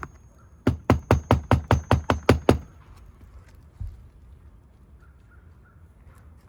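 A quick, even run of about a dozen hammer blows on an asphalt-shingle roof, some six a second, stopping after two and a half seconds, followed a little later by a single knock.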